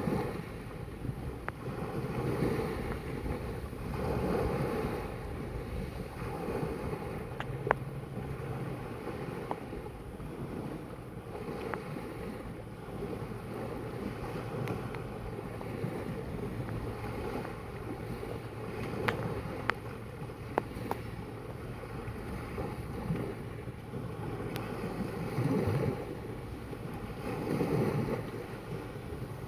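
Sea water washing and lapping in slow swells every few seconds, with wind on the microphone and a few short clicks.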